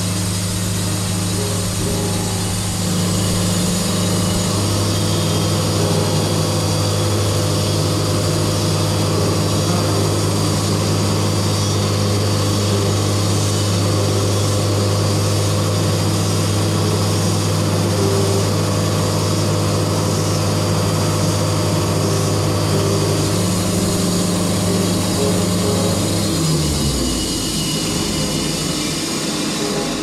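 Wood-Mizer LT70 bandsaw mill running steadily while its band blade saws a board off a sassafras log. About 27 seconds in, the drone drops in pitch and eases as the saw head clears the end of the cut.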